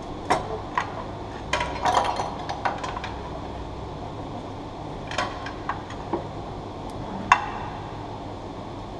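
Irregular metallic clinks and knocks of tools and parts as a Honda S2000's gearbox is worked loose from underneath, with the sharpest knock about seven seconds in.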